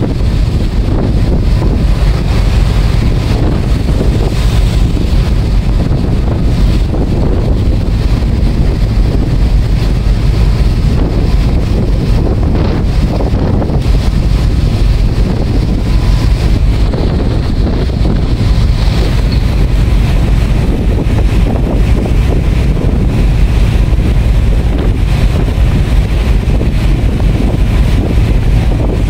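Wind buffeting the microphone aboard a fast-moving ferry: a steady, loud low rumble over the rush of water and the ship's running noise.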